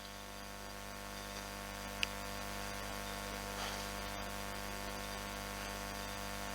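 Steady electrical mains hum with a faint hiss, made of many steady tones, and one short click about two seconds in.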